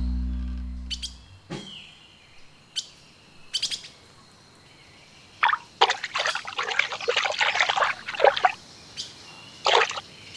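A music track with drums fades out in the first second or so, leaving bird chirps and a few short clicks. About halfway through, a few seconds of water splashing and trickling start, broken by short pauses.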